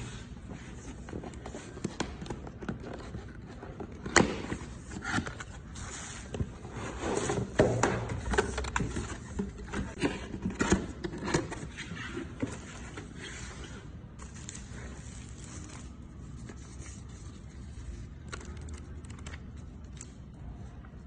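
Irregular scraping, rustling and sharp clicks of objects being handled, busiest and loudest from about four to twelve seconds in, then thinning to a few light clicks over a low steady background.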